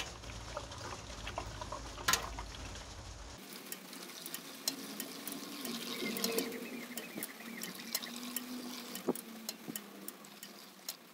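Coolant pouring from a bottle into a plastic engine coolant expansion tank: a steady trickle with many small bubbling clicks and a wavering glug as it fills.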